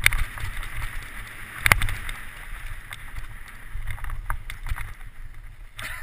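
Downhill mountain bike ridden fast over a rough, rooty trail: tyres on dirt, the bike rattling and knocking over bumps, and wind rumbling on the helmet-mounted camera's microphone. One sharp knock stands out about two seconds in.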